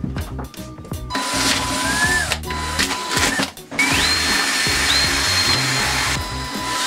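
Cordless drill boring holes through a fiberglass float, its motor whining and rising in pitch as it spins up. There are two runs, starting about a second in, with the second climbing higher. Background music plays underneath.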